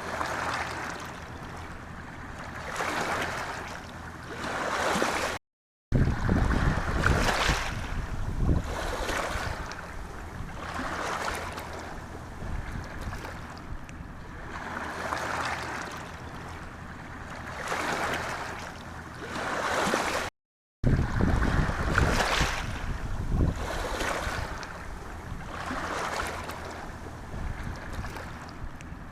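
Sea waves washing against shoreline rocks, each surge swelling and falling away every few seconds. The sound cuts out completely twice, for about half a second each time, a little past 5 seconds in and again at about 20 seconds.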